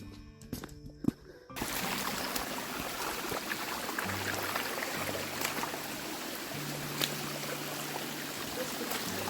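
Background music with low held notes; about one and a half seconds in, a loud, steady hiss of rushing water cuts in and runs on over it.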